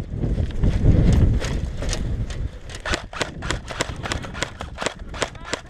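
Running footsteps and jostling of a body-worn camera, a heavy thudding rumble that fades after about two seconds. From about a second and a half in, airsoft guns fire a steady series of sharp snaps, about three a second.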